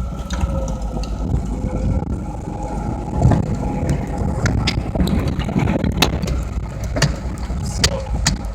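Off-road vehicle's engine running low and steady after a loud run drops off, with scattered sharp clicks and knocks.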